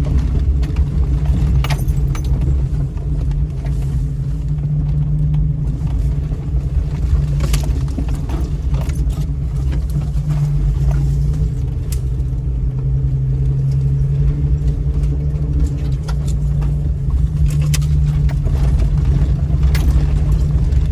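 Inside the cab of a 2000 Jeep Cherokee creeping along a rough 4x4 trail: a steady low engine drone, with scattered sharp knocks and rattles as the body jolts over the ground.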